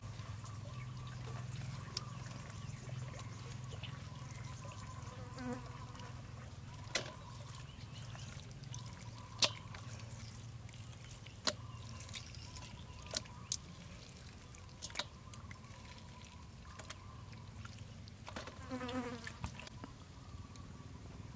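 A low steady buzz with sharp clicks or knocks every couple of seconds, and a brief warbling pitched sound near the end.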